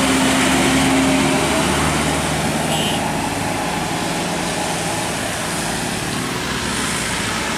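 Steady road traffic noise, with the engine hum of a large vehicle running close by.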